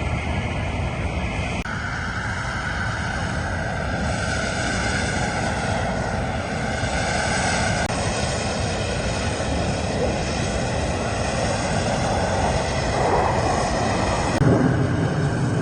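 Fixed-wing aircraft engines running, a continuous rushing noise whose character changes abruptly three times, where separate flight clips are cut together.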